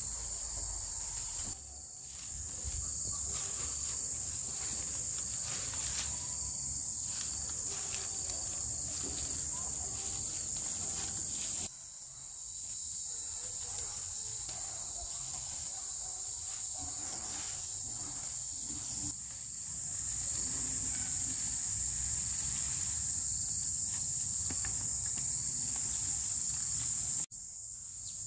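Forest insect chorus: a steady, high-pitched buzz that dips briefly a few times. A few faint knocks sound under it.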